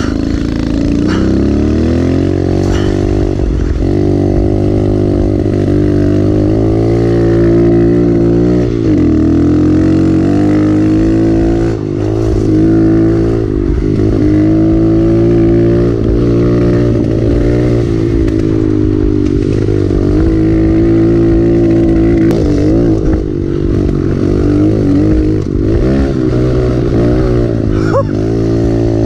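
Mini dirt bike engine running under throttle, heard close up from the bike being ridden, its pitch climbing and then dropping back every few seconds.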